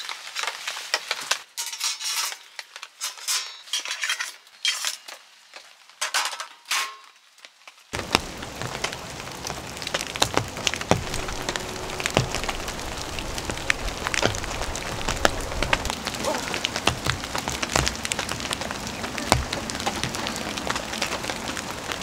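Metal tent poles clinking and knocking as they are handled and slotted together. About eight seconds in, this cuts to steady rain falling, with many small drops ticking on the tent.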